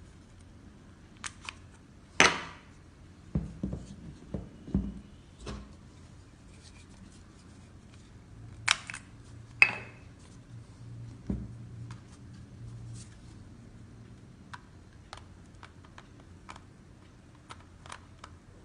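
Handling noise from unboxing a Canon EOS M10 camera and its kit lens: scattered clicks, taps and knocks of the camera, its parts and packaging. There are louder knocks about two seconds in and around nine to ten seconds, with lighter ticks in between.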